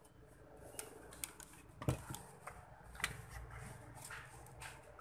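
Scattered light clicks and taps of tools and parts being handled during work on a power supply unit, with a sharper knock about two seconds in.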